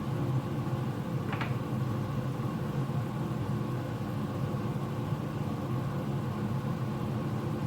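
Steady low mechanical hum, with a single light clink about a second and a half in.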